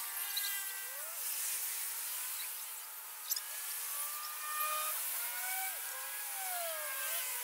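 Distant motor engines whose pitch rises and falls, over a steady high hiss, with one sharp click about halfway through.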